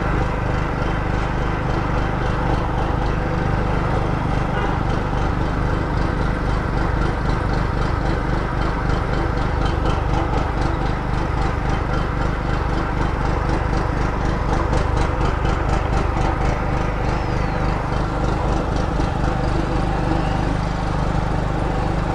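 Huspanda H3600 gasoline generator engine running steadily under load.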